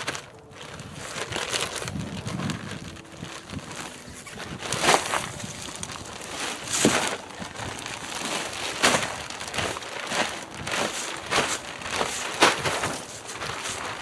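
Plastic bag of raised bed mix being handled and emptied: plastic crinkling and rustling as soil spills out, with sharper crinkles every second or two from about five seconds in.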